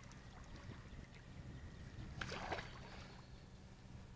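Faint water lapping and sloshing against a kayak's hull, with a few small knocks early on and a brief louder rush of water-like noise a little past two seconds in.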